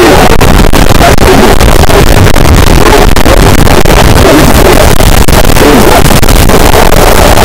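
Harsh noise wall: a dense, unchanging wall of distorted noise at full volume, heaviest in the low and low-mid range, with no rhythm or pitch.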